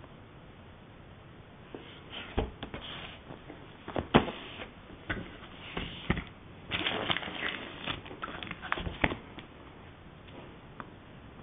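Unboxing noises from paper, cardboard packaging and a cable being handled on a table: irregular rustles, taps and light knocks from about two seconds in, the sharpest about four seconds in, stopping after about nine and a half seconds.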